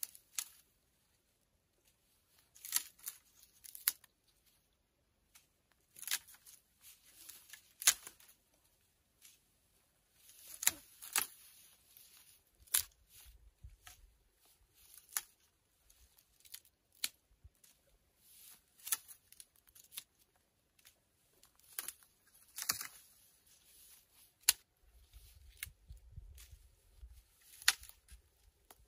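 Dry dead branches being snapped and broken off a shrub by hand: sharp cracks of breaking wood every second or two, with rustling of twigs between them.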